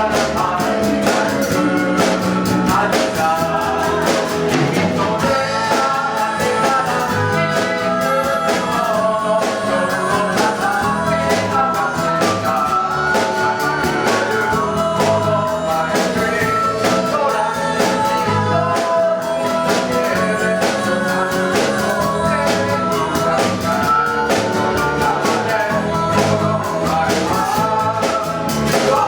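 Live band playing a pop song with singing and a steady drum beat.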